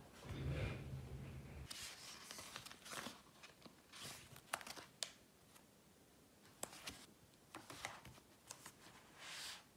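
Quiet rustling and crinkling with scattered sharp clicks, the sound of small objects or paper being handled, after a brief low hum at the start.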